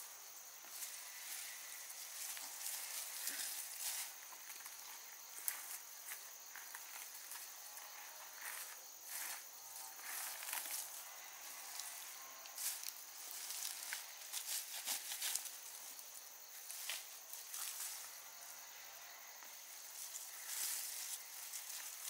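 Leafy undergrowth rustling and stems crackling as plants are pulled up by gloved hands, in irregular bursts of small snaps. A steady high insect drone runs behind.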